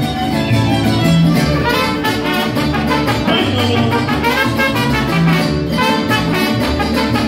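Live mariachi band playing an instrumental passage: trumpets carrying the melody over violins, strummed guitars and a pulsing bass line.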